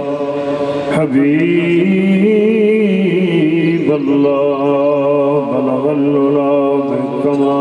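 A man's voice chanting in slow, long-held melodic lines, the pitch bending up and back down about two seconds in.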